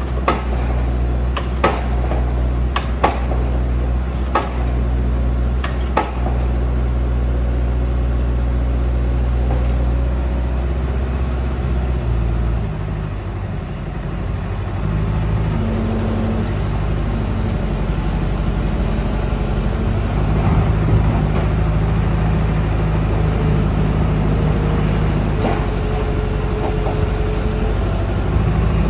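Heavy diesel machine engine running steadily, with sharp metallic clanks about every second and a half during the first six seconds. About twelve seconds in, the deep steady drone gives way to a different engine note that steps up and down in pitch.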